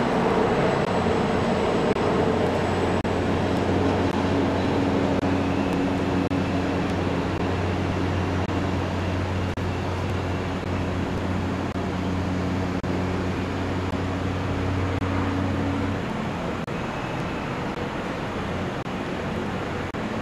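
City noise heard from high up: a steady wash of distant traffic, with a steady low hum that stops about sixteen seconds in.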